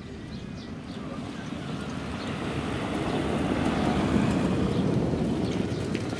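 A field of trotters pulling sulkies passes on a dirt track, with hoofbeats and wheels rumbling together with the mobile starting-gate car pulling away. The rumble swells to its loudest about four seconds in, then begins to fade.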